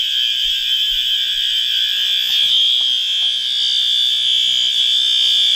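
Fire alarm horn sounding continuously: one loud, steady, high-pitched tone.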